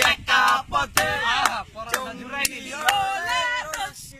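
Young men's voices shouting loudly in a sing-song chant, pitch rising and falling, with a few sharp clicks.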